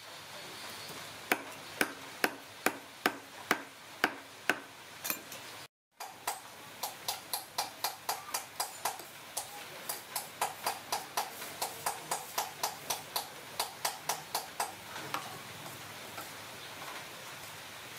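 A run of sharp, evenly spaced ticks, about two to three a second. After a brief break about six seconds in, it resumes slightly faster and fades out around fifteen seconds, leaving a steady low hiss.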